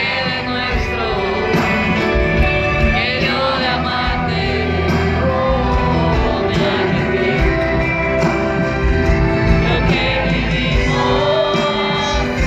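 Live pop ballad: a male lead singer's voice over a full band through a concert PA, heard from the audience. The voice holds and bends long sung notes without a break in the music.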